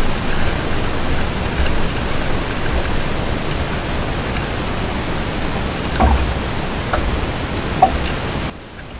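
Steady rushing wind noise on the microphone with low buffeting thumps and a few faint clicks; the rush cuts off abruptly near the end.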